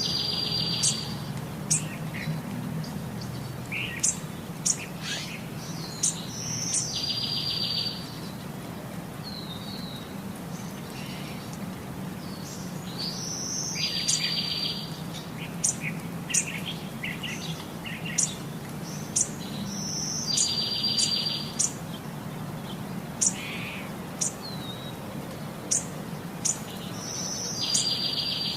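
Songbirds chirping: many short, high chirps, with a rapid buzzy trill recurring about every seven seconds, over a steady low hum.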